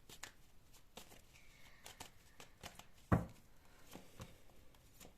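Tarot cards being shuffled and handled, a run of faint light clicks and riffles, with a soft thump about three seconds in as a card or the deck meets the table.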